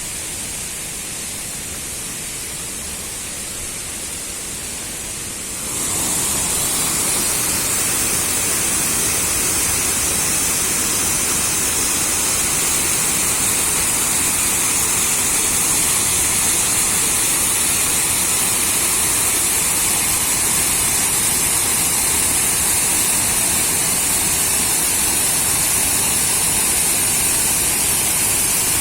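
Steady rush of falling water from a mountain stream cascading down toward a waterfall; it gets abruptly louder about six seconds in and then holds steady.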